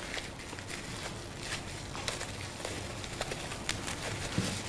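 Plastic bubble wrap crinkling and crackling as it is pulled open by hand, in scattered small irregular clicks.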